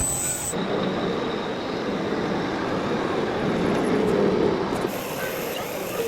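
Radio-controlled model truck running: a steady mechanical rumble with a faint high whine.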